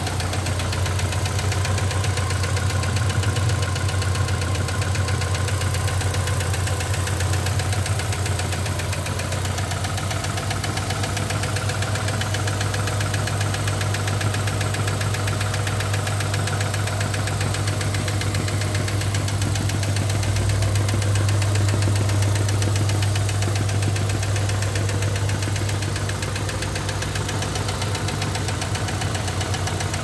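Chevrolet Vectra four-cylinder engine idling steadily with a rapid ticking from the valvetrain: hydraulic lifters (tappets) whose oil drained down while the car stood parked for four days.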